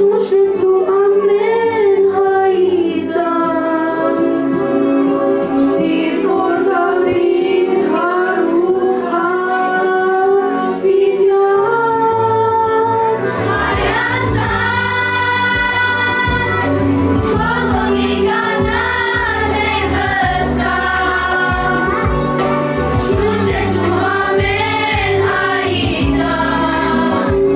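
A girl sings an Armenian-language song solo into a microphone over instrumental accompaniment. About 13 seconds in, a children's choir joins her in unison, and bass and a steady beat come in under the voices.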